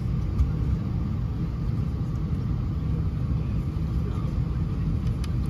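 Steady low rumble of airliner cabin noise in flight, the engines and airflow heard from a passenger seat.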